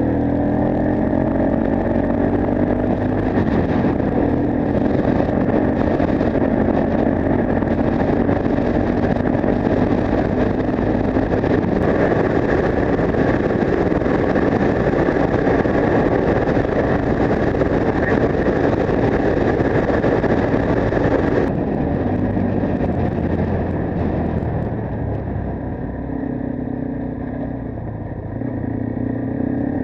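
Yamaha TW 125's single-cylinder four-stroke engine, fitted with an Akrapovic exhaust, running under way with wind noise rushing over it. About three-quarters of the way through the engine eases off and the sound drops, then it picks up again right at the end.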